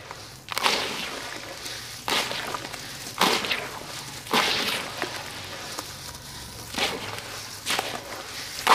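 Lumps of sand-cement crumbled by hand and falling into a metal bowl holding water, heard as seven separate gritty crunching bursts, each tailing off quickly.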